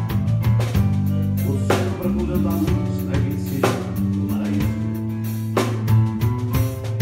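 Electric bass and drum kit playing together live: long low bass notes under a steady run of drum and cymbal hits.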